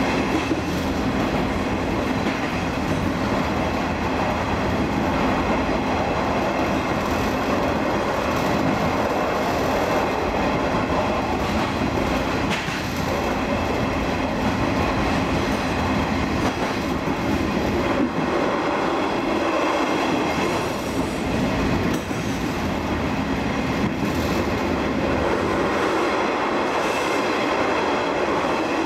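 Running sound aboard a KiHa 47 diesel railcar under way: a steady diesel engine drone mixed with wheel and rail noise. Wheels knock over rail joints now and then.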